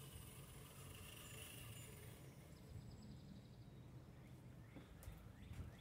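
Near silence outdoors: a low rumble of wind on the microphone, with a faint high hiss and whine that dies away about two seconds in. A few faint bird chirps come near the end.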